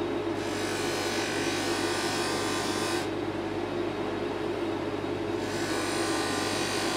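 Bench polishing motor running steadily as a metal watch bracelet link, held in a wooden block, is pressed against its spinning stitched cotton mop. Each of the two contacts adds a hiss lasting a couple of seconds, the first starting just after the opening and the second about two-thirds of the way in.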